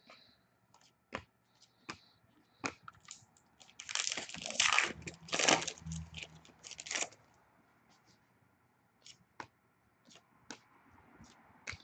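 Wrapper of an Upper Deck hockey card pack crinkling and tearing as it is opened, in a dense run of crackling about four to seven seconds in. Scattered light clicks of cards being handled come before and after it.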